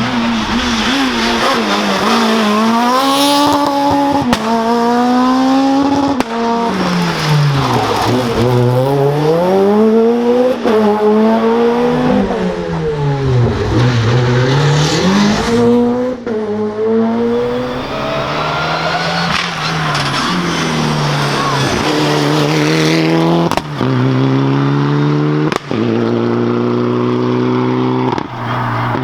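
Rally car engines at full throttle on a special stage. The pitch climbs in steps through quick gear changes, then falls back as the cars brake and downshift, and this happens several times over.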